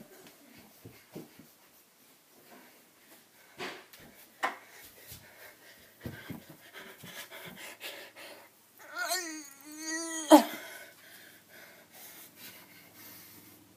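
Scattered thuds and knocks of a person running and jumping on a room's floor, and about nine seconds in one wavering, pitched cry lasting about a second and a half that ends in the loudest peak.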